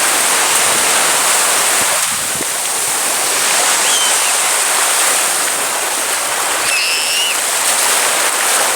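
Steady rushing noise of sea waves and surf, with no break, and a couple of faint short high-pitched squeaks about halfway and near the end.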